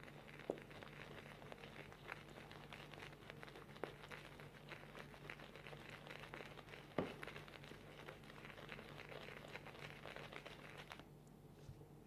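Synthetic shaving brush being swirled over shaving soap to load it, a faint, steady wet crackling of the bristles that stops about eleven seconds in. A few light knocks of the brush against the soap dish along the way.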